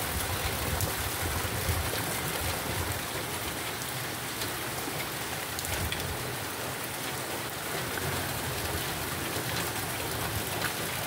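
Heavy rain of a sudden cloudburst pouring steadily, with gusting wind rumbling low on the microphone.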